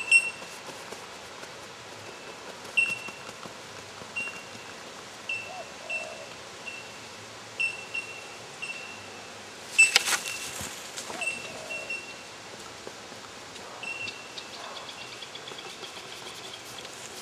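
A bird giving a short, high chirp over and over, about once a second at one steady pitch. A louder sharp scrape or clatter comes about ten seconds in.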